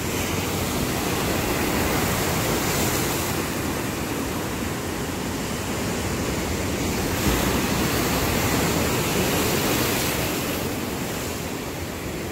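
Ocean surf: waves breaking and washing in as foam, a steady rushing noise that swells twice.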